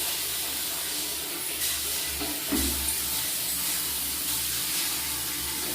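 Water tap running with a steady, strong rush of water into a sink; the water pressure is good.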